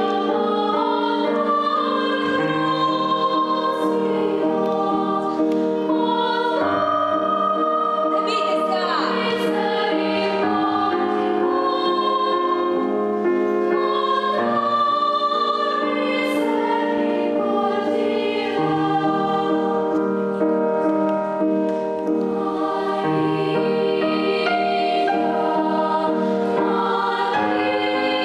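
Girls' choir singing in several parts, moving through long held chords.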